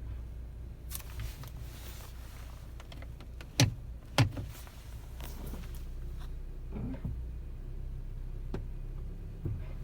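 Two sharp clunks about half a second apart, from underneath a 2021 Honda CR-V braking at low speed, over the car's low steady rumble. This is the unexplained low-speed braking noise the owner is reporting.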